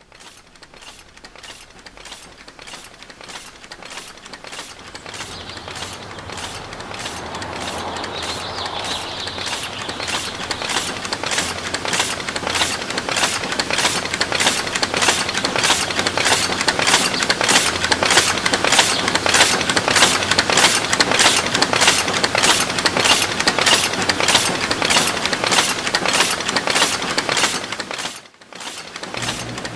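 Rhythmic mechanical clanking, about two strokes a second, fading in and growing steadily louder, then cutting off sharply near the end.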